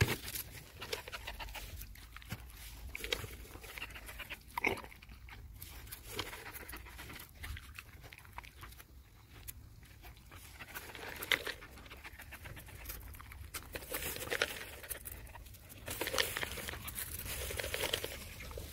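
Dogs up close sniffing and taking treats from a hand, with chewing crunches and rustling near the microphone.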